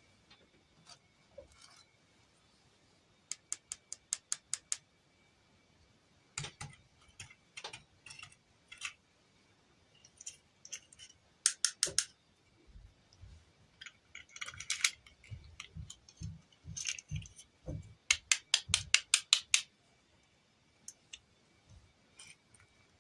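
Small hard objects being handled: sharp clicks and taps, some single and some in quick runs, with the loudest run of about ten rapid clicks near the end.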